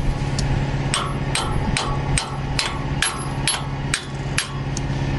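Steel hammer blows on a tractor's rusty steel hitch pin and drawbar eye, about two sharp metallic strikes a second. A steady engine hum runs underneath.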